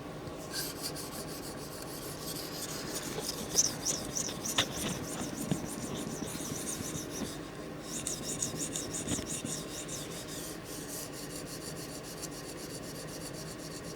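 Steel tanto blade of a Microtech Combat Troodon OTF knife stroked rapidly back and forth on a whetstone, a scraping rasp in quick, even strokes with a short pause about halfway through. This is edge work on a coarser stone ahead of the 800-grit stone.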